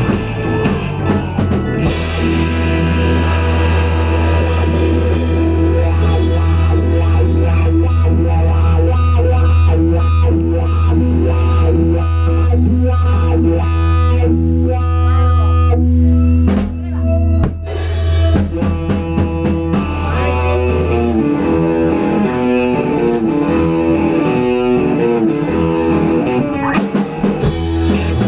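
Rock band playing live: electric guitars, electric bass and drum kit. A low bass note holds for most of the first twenty seconds, with a brief drop and a loud hit near the middle, then the band moves into a riff of changing notes.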